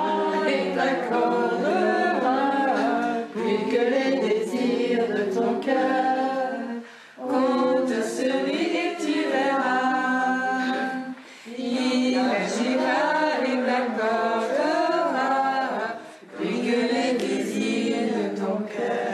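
A small group singing a song together without accompaniment, in sung phrases with short pauses for breath between them.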